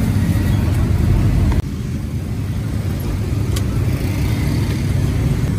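Steady low rumble of street-market background noise, like passing traffic, with a sudden drop in level about a second and a half in.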